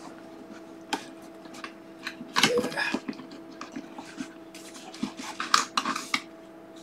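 Thin plastic hockey mask being pushed and adjusted over a latex mask by hand: scattered plastic clicks, taps and rustles. They come in a cluster about two and a half seconds in and again around five to six seconds in, over a faint steady hum.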